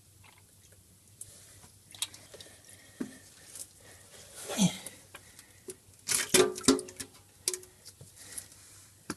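Steel oil pan of a Subaru 4EAT automatic transmission being lowered off the case, full of transmission fluid: scattered knocks and clicks with wet dripping and squishing, the loudest knocks coming about six to seven seconds in.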